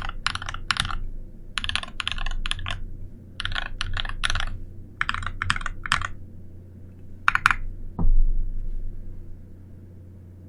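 Mechanical keyboard with Holy Kiwi tactile switches (Holy Panda stems in Kiwi housings, filmed) and HK Gaming Chalk keycaps, its keys struck in quick groups of three or four for a deep 'thock'. Near the end come two more strikes, then a single louder, deeper thump about eight seconds in.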